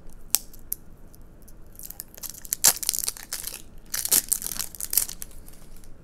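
Thin plastic seal and sticker being peeled and torn off a small plastic barrel of slime: crackly crinkling and tearing, with one sharp click near the start and denser crackling in the second half.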